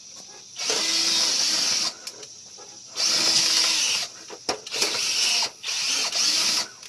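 Power drill running in four bursts of about a second each, its motor whir mixed with a strong hiss.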